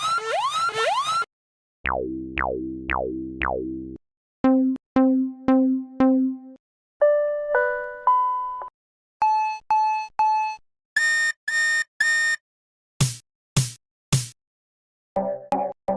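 A run of short synthesized electronic sound effects, each a pattern of two to four repeats, changing every second or two with brief gaps. In order: rising chirps, four falling glides, four dings, an alternating two-note chime, three beeps, three buzzy tones, three sweeps and a few quick blips.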